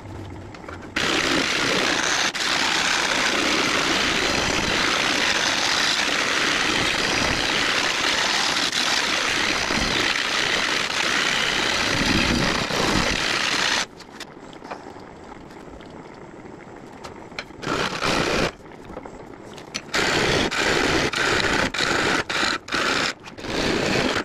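Gouge cutting the inside of a large blue pine bowl spinning on a wood lathe: a loud, steady shearing hiss of the cut from about a second in until about halfway, then the lathe running more quietly with short, repeated bursts of cutting.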